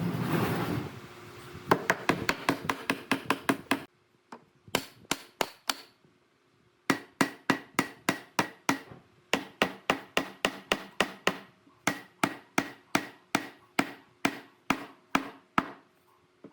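Hammer blows in a woodworking shop, struck in quick, even series. A fast run of about five a second comes first, then a short pause. A steadier run of about three a second follows, each blow with a slight ring.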